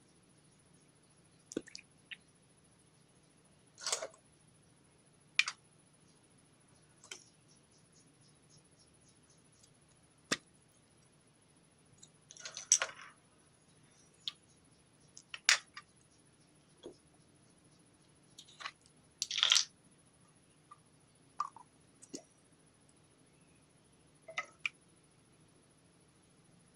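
Putty slime being mixed and pressed by hand: scattered short squishes and sharp clicky pops, a second or several apart, with a few longer squelches.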